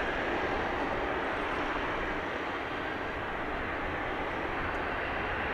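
Jet engines of a twin-engine widebody airliner running as it rolls along the runway: a steady rushing jet noise.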